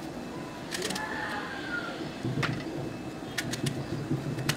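A kitchen knife slitting small brinjals (eggplants) into quarters, held in the hand: a few faint, sharp clicks and soft cuts, spaced out.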